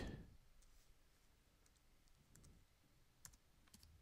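A few faint, scattered keystrokes on a computer keyboard as a number is typed into a field, over near silence.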